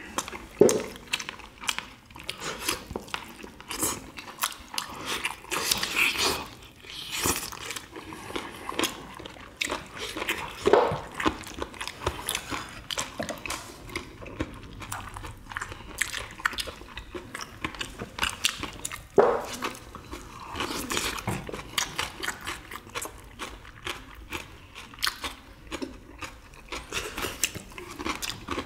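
Close-miked eating sounds: chewing and biting into a samgyetang meal, with many short, sharp smacks and clicks and a few louder brief mouth sounds.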